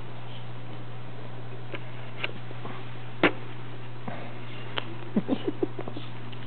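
Bullshih puppies playing: small ticks and scuffles of paws on a wooden floor, with a sharp knock about three seconds in and a quick flurry of short squeaky sounds near the end, over a steady low hum.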